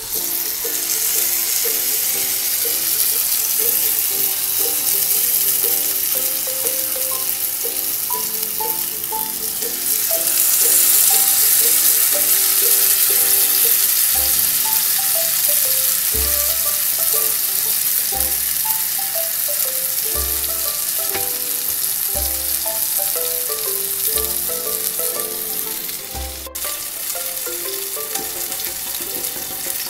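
Whole marinated pomfret sizzling as they shallow-fry in hot oil in a kadai. The sizzle starts as the fish goes into the oil and grows louder about ten seconds in. Soft background music with a melody plays underneath, and a low beat joins about halfway through.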